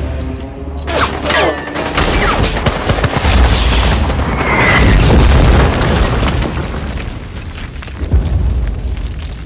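Cinematic explosion booms and a heavy low rumble that swell over several seconds and ease off near the end, with dramatic film score beneath.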